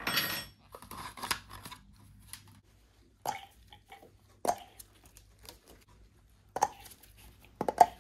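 Hands pulling the spark plug caps and front plastic covers off a Honda ST1100 V4 engine: a short rustle and scrape at the start, then a few separate sharp plastic clicks and snaps a second or more apart.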